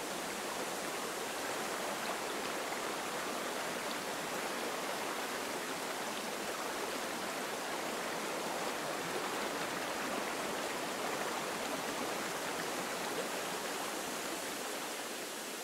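Steady rush of running stream water, even and unbroken.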